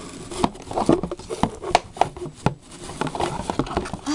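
Cardboard packaging and hard plastic toy parts being handled and tugged: irregular clicks, taps and rustles as a toy bathtub is worked loose from its box.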